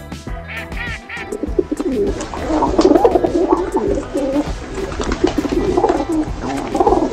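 A duck quacks a few times, then doves coo over and over, low and busy.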